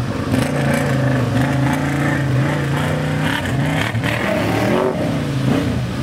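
ATV engines running, with a steady low drone underneath. A four-wheeler revs up and down through a mud hole, its engine note rising and falling about three to five seconds in as it bogs down.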